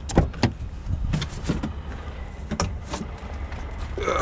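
Semi-truck cab door being unlatched and opened by hand: several sharp clicks and clunks from the handle and latch, over a steady low rumble.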